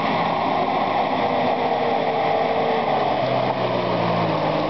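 Mercedes-Benz G300 4x4 engine running at low revs as the vehicle crawls through deep mud, its note wavering slightly in pitch.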